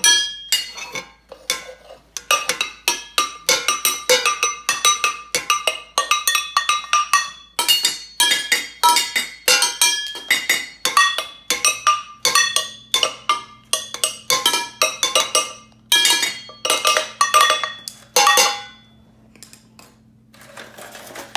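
Homemade drum kit of empty tin cans, a foil pie pan and a plastic whipped-topping tub beaten fast with sticks: a rapid run of clanking metal hits, each ringing briefly, several a second. The playing thins out and stops about nineteen seconds in.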